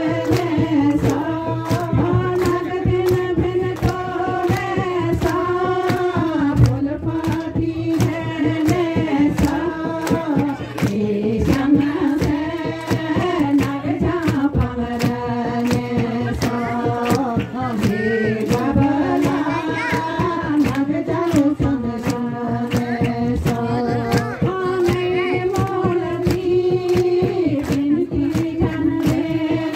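A group of voices singing a slow melody with no instruments, held notes gliding between pitches, over a steady beat of hand claps.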